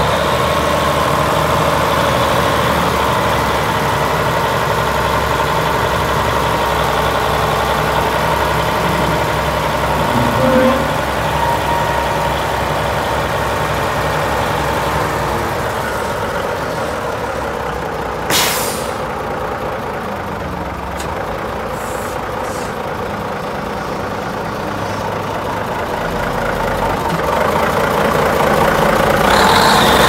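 Komatsu D75S crawler loader's diesel engine idling steadily, with one short hiss a little past halfway.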